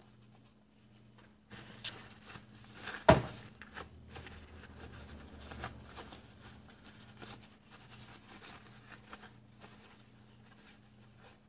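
Gloved hands clearing items on a workbench: scattered small clicks and rustles, with one sharp knock about three seconds in. A low steady hum runs underneath.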